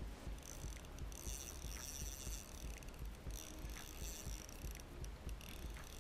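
Shimano Soare spinning reel being wound in on a hooked mackerel, its gears and rotor giving a high whir in stretches that stop and start, over a low rumble.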